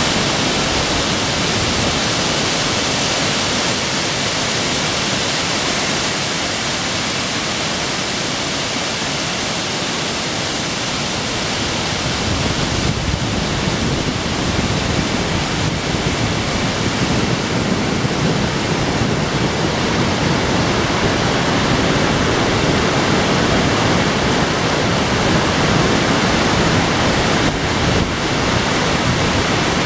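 Steady rushing of a mountain waterfall pouring down a rock face into a boulder-strewn torrent, with no pauses. From about halfway through the sound grows fuller and deeper.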